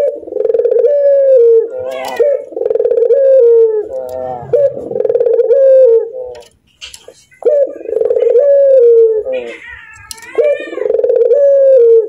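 Barbary dove (puter) giving its rolling 'laughing' coo: about five long, trilled phrases in a row, each held near one pitch and falling away at the end.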